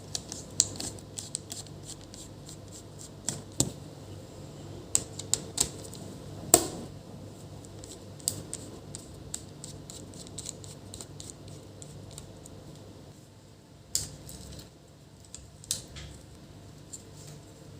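Irregular sharp plastic clicks and taps as the original speaker is pried out of an opened laptop and handled. The loudest knock comes about six and a half seconds in and rings briefly, and the clicks thin out near the end.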